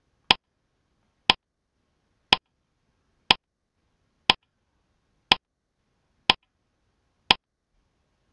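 Countdown-timer sound effect: a sharp tick once a second, eight in all, with silence between them.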